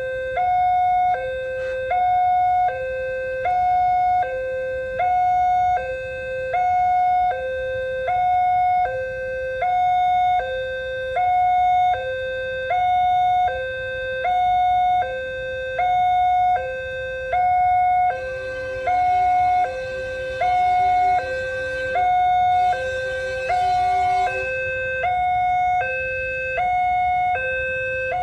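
Railway level-crossing warning siren sounding a steady two-tone hi-lo alarm, about one full cycle every 1.3 seconds, warning that a train is approaching. Past the middle, a lower hum and rushing noise join for a few seconds.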